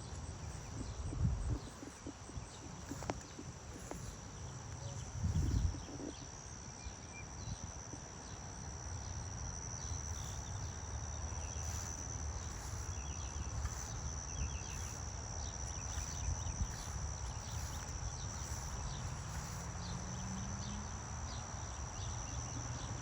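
Insects trilling in one steady, high, unbroken tone, over a low rumble. Two dull thumps come in the first six seconds.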